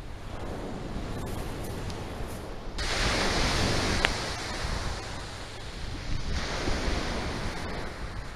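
Surf and wind on a shingle beach: a steady rushing noise that turns louder and brighter about three seconds in.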